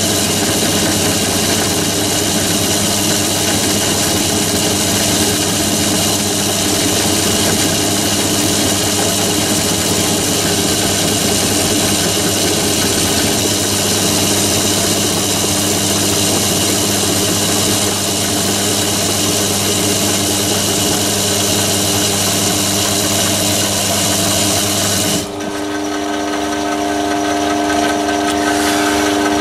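Myford ML7 lathe driving an insert milling cutter that is milling the hard steel shank of a turning tool, a steady loud cutting noise over the lathe's running whine. About 25 seconds in, the cutting noise suddenly drops away, leaving mostly the steady tones of the running machine.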